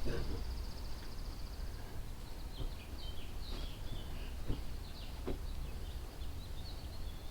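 Small birds chirping, with a fast high trill near the start and a string of short chirps after that, over a steady low rumble, with a few light clicks.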